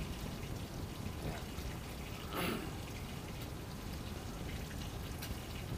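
Grated santol flesh being squeezed by hand in a plastic colander, its sour juice dripping and trickling out, with one brief louder wet squish about halfway through.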